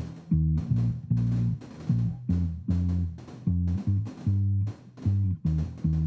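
Recorded electric bass line playing back through a Waves CLA-2A optical compressor plugin. It is a run of short plucked notes, about two to three a second, with small gaps between phrases.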